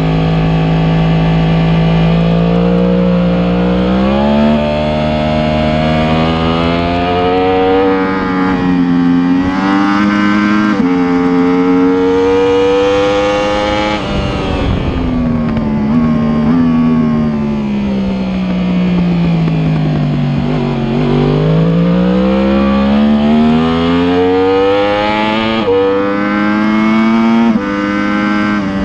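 2015 Yamaha R1M's crossplane inline-four at full throttle, heard onboard: the engine note climbs and drops suddenly at each upshift, falls away for several seconds as the bike slows for a corner about halfway through, then climbs again with two more quick upshifts near the end.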